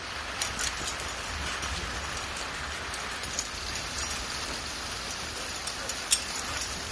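Steady rain falling, with scattered sharper drops ticking close by over a low rumble.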